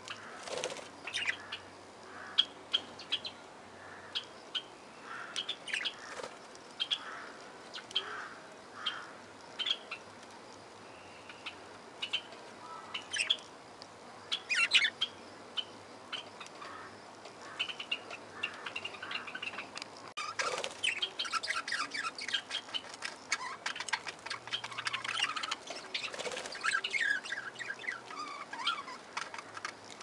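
A flock of budgerigars chirping: scattered short chirps at first, turning into busy, continuous chatter from about two-thirds of the way in.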